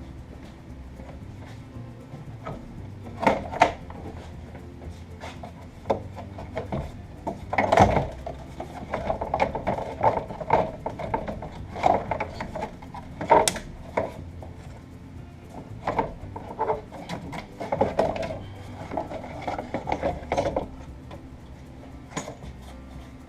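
Electric cooling fan assembly being wrestled out of an engine bay: irregular knocks, clunks and scraping as it catches on hoses and a bracket, with the loudest knocks about 3, 8 and 13 seconds in.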